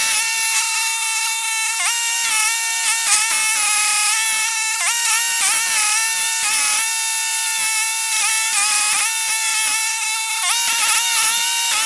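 Toro STX-38 stump grinder running hard with its cutter wheel grinding into a stump. The steady high engine note sags briefly and recovers again and again as the teeth bite into the wood.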